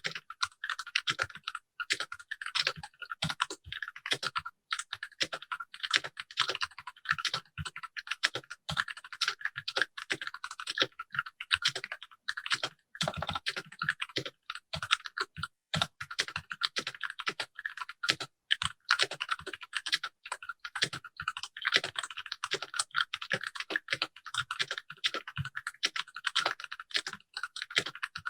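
Continuous fast typing on a Keychron K6 65% mechanical keyboard with ABS keycaps, sitting straight on the desk without a deskmat: a dense, uneven run of many keystroke clicks.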